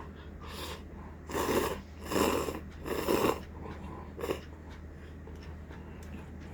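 A person eating makes loud, noisy rushes of air through the mouth or nose: three about a second apart, then a shorter one.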